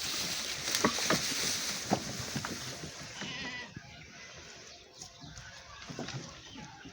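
Goat bleating, with a short call a little past the middle. A noisy hiss and several sharp knocks fill the first few seconds.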